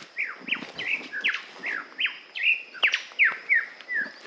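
Superb lyrebird singing loudly: a rapid run of sharp, descending whistled notes, several a second, as it rolls through mimicked calls of other birds.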